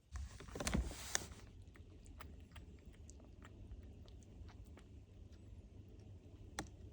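Munchkin kitten chewing, with many small irregular crunching clicks. A louder rustling burst comes in the first second.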